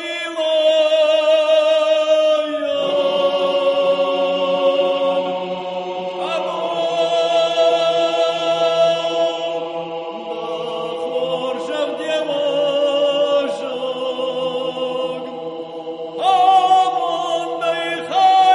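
Background music of chanting voices, a choir holding long wavering notes that change every few seconds.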